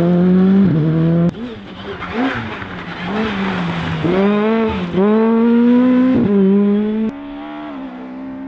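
Rally car engines, a Škoda Fabia and an Opel Adam, pulling hard on a stage, with revs rising and then dipping at gear changes and lifts. The sound cuts to another car about a second in and again about seven seconds in; the last car is quieter and steadier.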